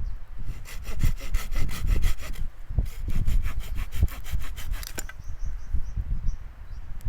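Hand saw cutting firewood in quick, even strokes, in two runs with a short pause between, then quieter, slower rubbing near the end.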